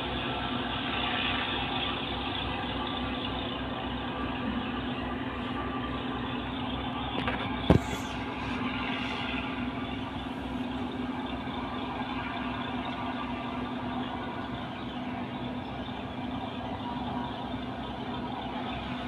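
Ship's engine running steadily with an even hum. A single sharp knock about eight seconds in.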